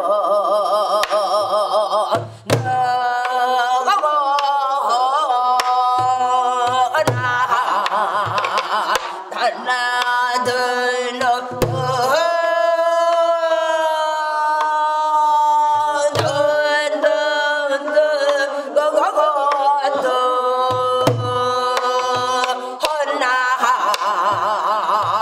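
A woman's voice singing pansori-style gueum, wordless vocal syllables with a wide vibrato and a long held note about halfway through. It is accompanied by low strokes on a buk, the Korean barrel drum, every few seconds.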